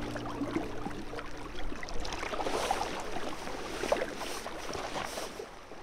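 Small waves lapping and splashing at the lake's edge, a crackly wash of water with many small splashes, fading out near the end. The last held notes of background music stop just after it begins.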